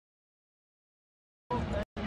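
Total silence, a gap in the broadcast sound, for about a second and a half; then the noise of the indoor sports hall cuts back in abruptly, dropping out again for a moment just before the end.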